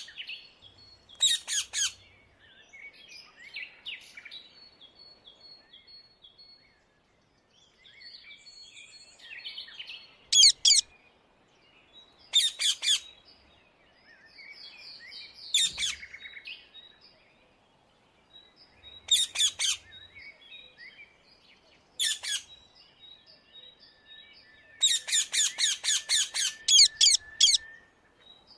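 Indian ringneck parakeets (rose-ringed parakeets) screeching: loud, harsh calls in short bursts of several quick notes, then a long run of repeated screeches near the end. Fainter high chirps and twitters fill the gaps between bursts.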